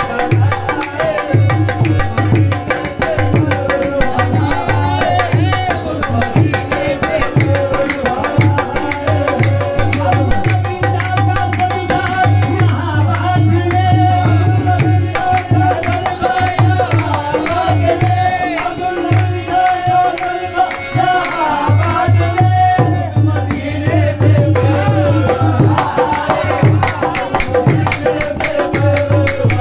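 Qawwali music: tabla playing a quick, steady beat under sung melody and held harmonium tones.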